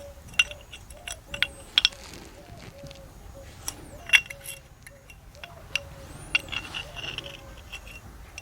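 Sharp metallic clicks and clinks, a dozen or so, irregular and some with a short ring, as a brake shoe return spring is handled and hooked back onto the drum brake shoes of a Rajdoot 175 motorcycle.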